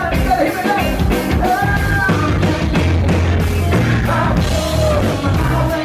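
Live rock band playing: a male lead singer over electric guitar, keyboards and drum kit, with steady held low notes and a regular drum beat.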